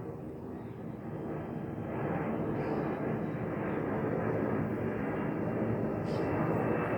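Airbus A321neo airliner's Pratt & Whitney geared turbofan engines rumbling as the jet flies by, growing steadily louder.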